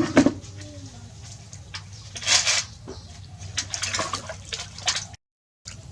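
Bath water splashing and pouring, with scattered small knocks, and a louder rush of water about two seconds in.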